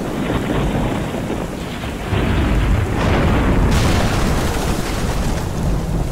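Logo-intro sound effects: a thunderstorm with heavy rumbling thunder, building into a loud explosive boom. It gets louder about two seconds in and brighter and hissier near four seconds.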